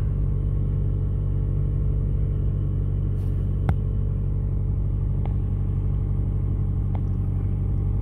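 Car engine idling steadily, heard from inside the cabin as a low, even hum. One sharp click comes a little before the middle, and two fainter ticks follow later.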